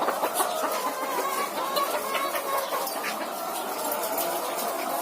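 A large flock of caged laying hens clucking, many birds calling over one another at once, with scattered light clicks.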